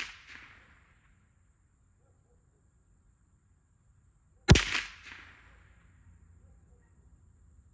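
A .22 LR rifle, a Magnum Research MLR-1722 firing CCI Mini-Mag rounds, fires one sharp shot about four and a half seconds in, its echo fading over about a second. The tail of a previous shot dies away at the start.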